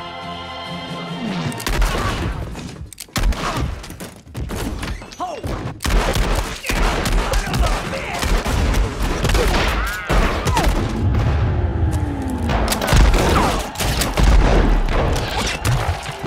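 Film gunfight: a dense run of gunshots and heavy booms over music, starting about a second and a half in.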